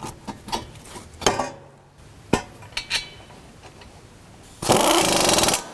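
Metal tools and parts clinking a handful of times, then, near the end, an impact wrench runs in one loud burst of about a second.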